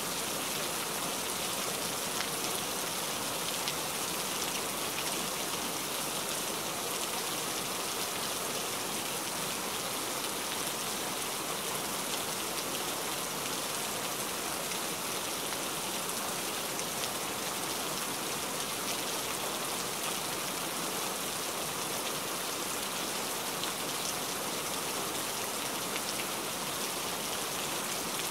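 Steady rain falling: an even, unbroken hiss of many drops, with faint individual drop ticks.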